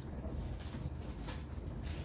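Whirlpool WFO3P33DLXUK dishwasher mid-wash: the circulation pump runs with a steady low hum while water from the spray arms swishes against the inside of the tub in brief surges every half second or so.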